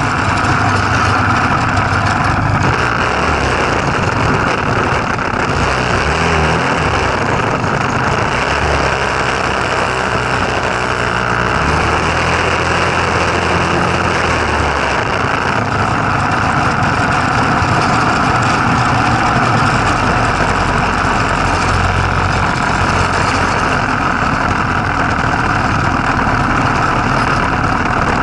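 Go-kart's Tecumseh four-stroke small engine running, its pitch shifting as the throttle changes partway through, over a steady rushing noise.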